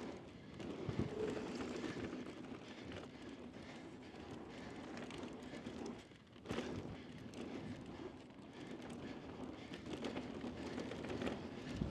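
Mountain bike rolling fast down a dusty dirt trail: steady tyre noise on loose dirt with the bike's chain and frame rattling and scattered knocks. Near the middle the noise drops for a moment, then comes back with a sharp thump.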